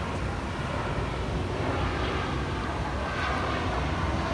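JR West 225 and 223 series electric multiple unit pulling out of a station, its traction motors and inverters whining over the rumble of wheels on rail, growing slightly louder.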